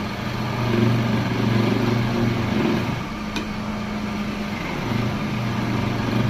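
Electric motor of a woodworking machine running with a steady hum, and a single sharp click a little past halfway.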